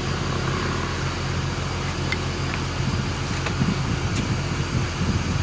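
Fishing boat's engine running steadily, a low even drone, with a few light clicks and knocks from the net and gear being handled.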